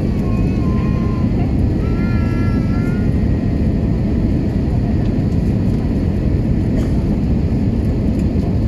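Steady cabin roar of an Airbus A320 on descent toward landing, engine and airflow noise heard from a window seat beside the engine.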